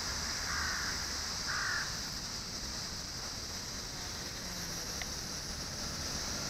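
A crow cawing twice in the first two seconds, over a steady high-pitched hiss.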